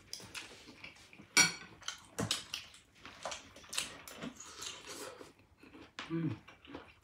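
Cutlery clinking against dishes during a meal: a series of scattered sharp clicks, the loudest a single ringing clink about a second and a half in.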